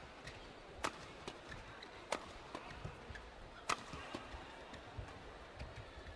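Badminton rackets striking a shuttlecock in a doubles rally: sharp cracks about every second and a half, the loudest about four seconds in, with lighter hits in between.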